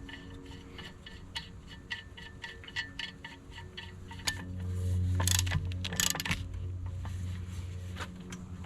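Quick run of sharp metallic clicks, a ratchet wrench running the propeller nut down onto the shaft, slowing after about four seconds. A low steady hum swells midway, with two brief scrapes about five and six seconds in.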